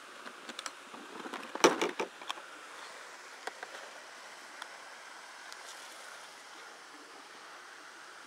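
Close handling noises, a run of clicks and knocks in the first two seconds, the loudest just under two seconds in, as a tape measure is set along a northern pike on the ground. After that, a steady hiss of water rushing below a dam.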